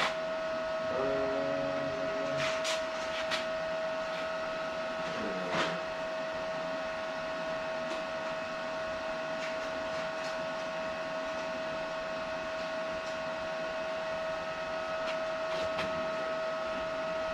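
Steady machine hum and hiss with a constant high tone, broken only by a few faint clicks.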